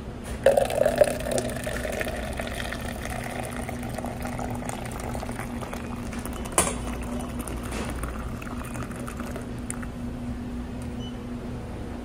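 Hot coffee pouring from a stainless-steel dispenser spout into a paper cup. It starts with loud splashing against the empty cup about half a second in, then runs as a steady stream. A single sharp click comes about halfway through.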